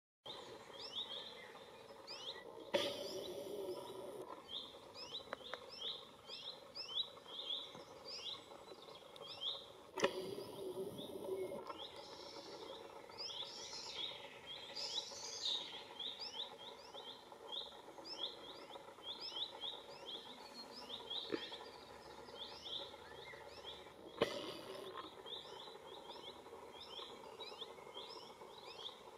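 Birds chirping: a steady run of short, high chirps repeated several times a second, with brief bursts of noise about 3, 10 and 24 seconds in.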